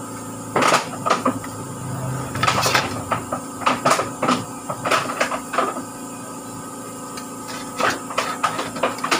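Scattered light clicks and knocks of a screwdriver and small metal parts while the screws holding the throttle position sensor on a Honda Click throttle body are undone, over a steady hum.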